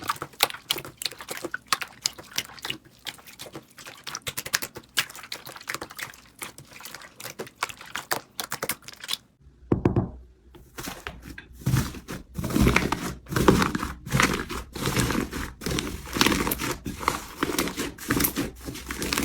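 Slime being squeezed and poked, giving dense, irregular crackling and clicking pops. About halfway through the sound changes to louder, deeper squelching pops.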